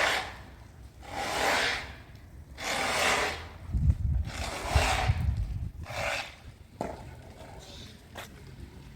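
Repeated rasping strokes on wood, about one every second and a half, with a few low thuds partway through.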